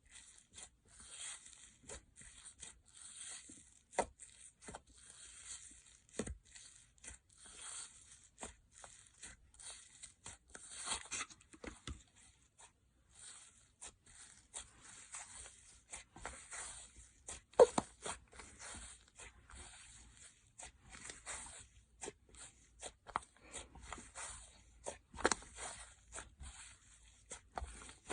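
Slime being squeezed, stretched and poked by hand, making a steady run of sticky crackles and small pops. A few sharper pops stand out, the loudest a little past halfway.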